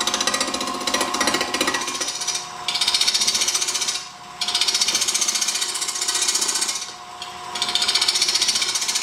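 Carbide turning tool scraping a spinning epoxy-resin sphere loaded with iron filings on a wood lathe, over the steady whine of the lathe. It makes a fast chattering scrape in several long passes, dipping briefly between them, as the tool bounces over the hard iron-filled half and has to be pushed harder to cut through it.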